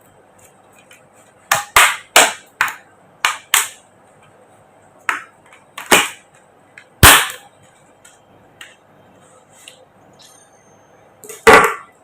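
Laptop bottom cover being pressed shut, its retaining clips snapping into place in a run of sharp clicks: a quick cluster in the first few seconds, then single, louder snaps around the middle and near the end.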